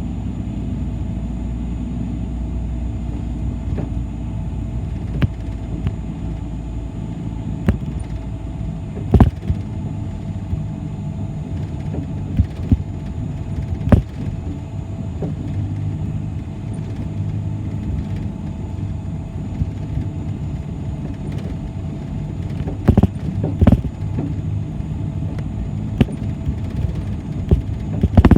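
City bus driving, heard from inside: a steady engine and road rumble, with a few sharp knocks and clatters from the bus about a third of the way in, halfway, and twice more near the end.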